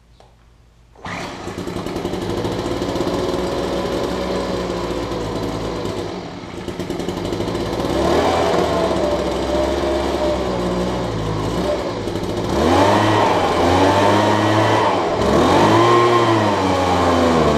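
A gasoline leaf blower engine catches about a second in and keeps running. From about eight seconds its speed rises and falls several times. It is running again after the plugged fuel screen in its Walbro carburetor was cleaned.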